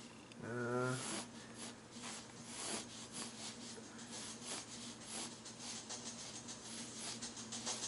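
Graphite pencil scratching across a canvas in a quick run of short sketching strokes. About half a second in, a person gives a short, wavering hum.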